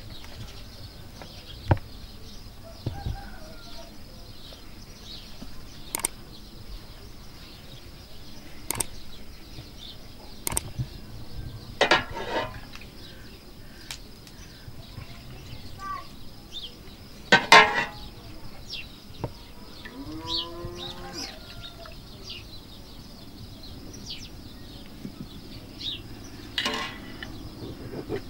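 Scattered clinks and knocks of a metal pot, bowl, small plate and glass being handled, with birds chirping throughout. Once, about twenty seconds in, a farm animal calls.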